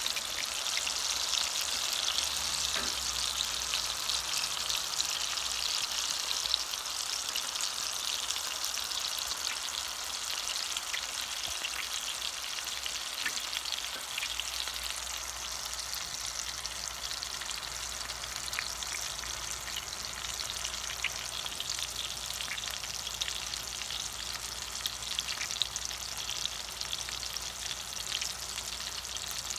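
Sausage rounds frying in hot oil in a stainless steel skillet: a steady sizzle with fine popping crackles as the slices brown, easing slightly about a third of the way through.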